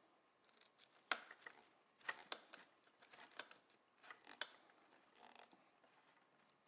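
Faint clicks and crinkling of stranded ground wires being twisted together by hand and a plastic wire nut being screwed onto them, with about five sharper clicks spread through.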